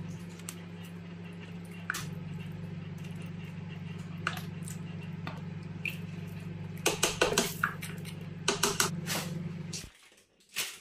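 A black ladle stirring thick, bubbling meat stew in an aluminium pressure cooker: wet squelching and scrapes, with the ladle clicking against the pot, and clusters of sharper knocks about seven and nine seconds in. A steady low hum runs underneath and stops near the end.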